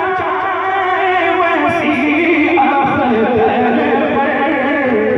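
Devotional singing: a male voice sings an Urdu manqabat in a long, ornamented melodic line.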